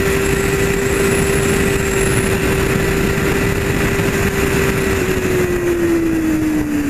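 Motorcycle engine running at a steady cruising speed, recorded onboard with wind and road noise; about five seconds in, the engine note starts to fall as the throttle is rolled off.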